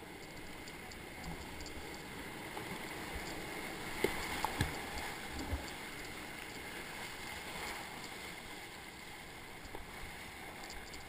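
Steady rush of whitewater in a river rapid in high water, heard from a kayak. A few sharp knocks and splashes come between about four and five and a half seconds in.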